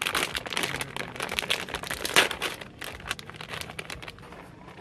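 A Cheetos snack bag's plastic wrapper crinkling as it is pulled open by hand. Dense crackling for the first two and a half seconds, with the loudest crackle about two seconds in, then lighter, sparser rustling.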